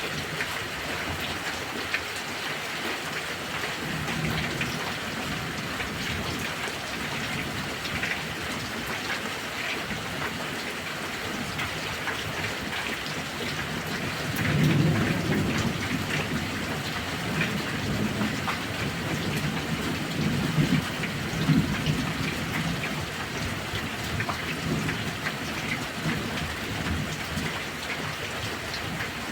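Heavy rain falling steadily, with thunder: a low rumble about four seconds in, then a longer, louder roll of thunder from about halfway through that swells several times before fading.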